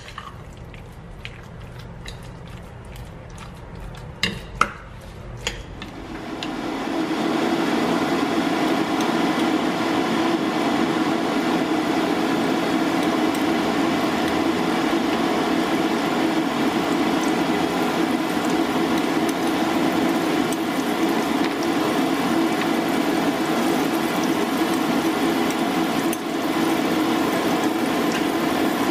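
A few clinks of a spoon stirring jackfruit batter in a bowl, then from about six seconds in a loud, steady sizzle of battered jackfruit pieces deep-frying in hot oil in a frying pan.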